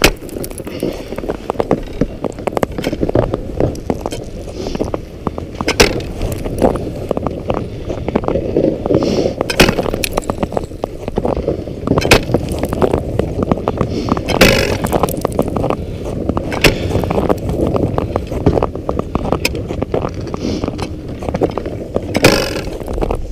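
Spud bar striking clear first ice every few seconds, sharp hits as the ice ahead is tested while walking out; the ice holds. A steady scraping noise runs underneath.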